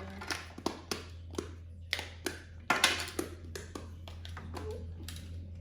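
Plastic fidget toys being pressed and flicked: a dozen or so irregular small taps and pops.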